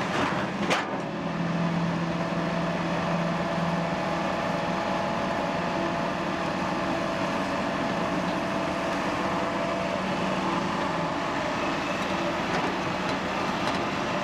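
Heavy diesel excavator engines running steadily, with two sharp knocks in the first second.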